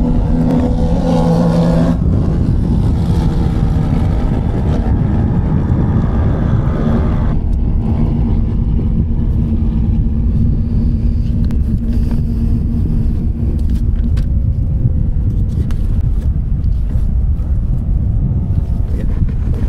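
Engines of a pack of racing quad bikes running hard on a sand beach course, a continuous engine drone. The note shifts about two seconds in, and the higher part of the sound thins out around seven seconds in as the machines race on.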